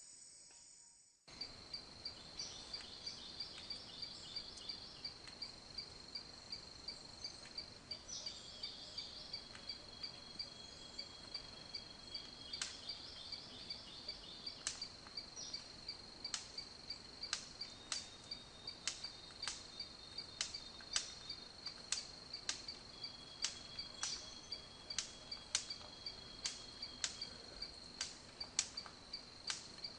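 Insects trilling steadily in a high pulsing tone, starting about a second in, with sharp ticks repeating about twice a second and a few faint thin whistles.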